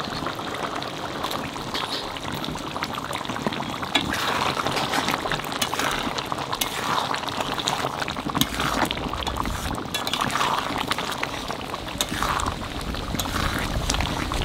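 Chicken curry bubbling at a boil in a karahi over a wood fire, with a ladle stirring and swishing through the thick gravy a few times.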